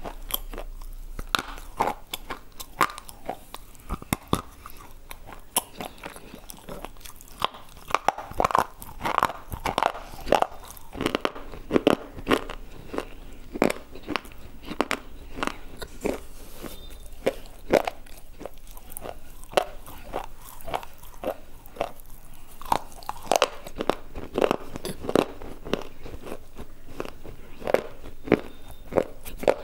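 A person biting and chewing brittle slate bars, hard chalky clay, with a microphone held at the mouth: sharp, irregular crunches, several a second.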